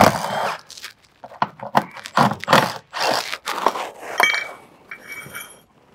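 Compact impact wrench with a 13 mm socket backing out the bolts of a steel belly inspection plate, in short bursts, between clinks and scrapes of the bolts and plate being handled.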